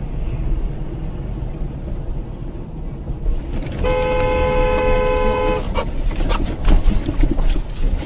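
A car horn honks once, held for nearly two seconds, about four seconds in: a warning as a backhoe loader swings into the car's path. Under it runs the low rumble of the car driving on a snowy road, and near the end come a run of sharp knocks and thuds.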